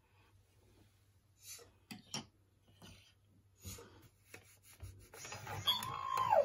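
A hand rubs over the plastic shell of a Disney Star Wars L0-LA59 (Lola) animatronic droid toy, with soft scuffs and clicks. Near the end the droid responds as its ear flaps lift, with a rising whirring noise and then an electronic tone that glides down in pitch.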